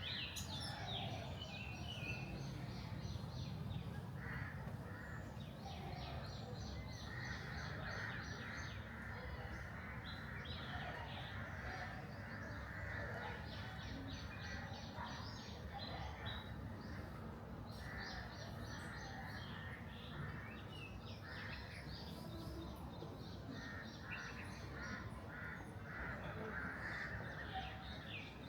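Several birds chirping and calling together: quick trains of short high notes mixed with harsher, lower calls that come and go, over a steady low background rumble.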